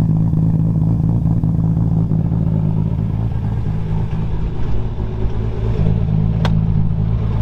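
Nissan Skyline R33 GT-R's built 2.8-litre RB26 stroker engine with a single large Borg Warner turbo, idling steadily through a 4-inch exhaust with a Kakimoto titanium tip. A single sharp click near the end as the car door is opened.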